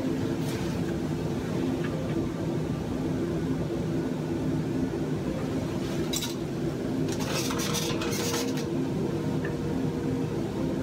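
A steady machine hum with several low steady tones. Brief rustling and clinking handling noises come about six seconds in and again around seven to eight seconds in.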